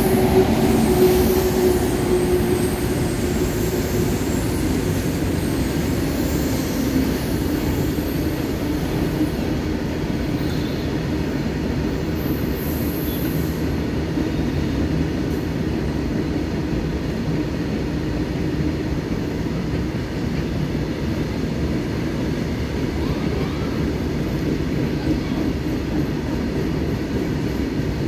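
Freight train of open box wagons rolling past: a steady rumble of steel wheels on rail. A high steady tone fades out over the first few seconds.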